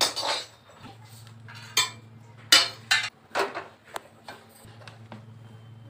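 Steel kitchen utensils clattering: a run of sharp knocks and scrapes as a steel bowl, a spoon and a steel kadai are handled on a gas stove, the loudest about two and a half seconds in.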